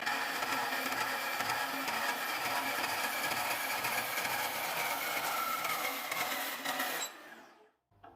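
Portable metal-cutting band saw running with a steady motor-and-blade noise, then switched off about seven seconds in and winding down quickly.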